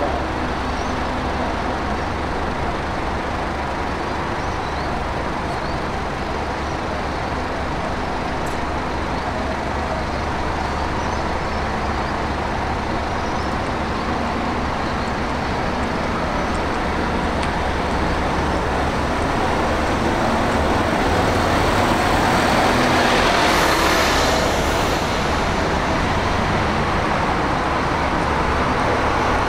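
Shuttle buses' engines running at a bus interchange, a steady drone of idling and slow-moving buses. About three-quarters of the way through it grows louder for a few seconds as a bus moves off or passes close, with a rush of hiss.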